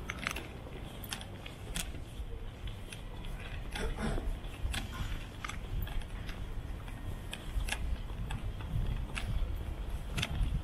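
Town street ambience at night: a steady low rumble with scattered sharp clicks and taps, and a slightly fuller scrape or knock about four seconds in.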